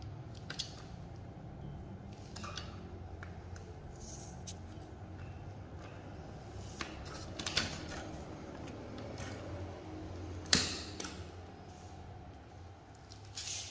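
Scattered light clicks and taps as a folding bicycle and the small clear plastic stand under its pedal are handled and balanced, with the sharpest knock about ten and a half seconds in, over a low steady hum.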